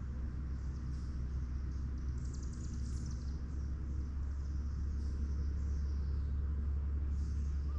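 Songbirds chirping in short high calls, with one quick trill about two to three seconds in, over a steady low rumble that grows a little louder toward the end.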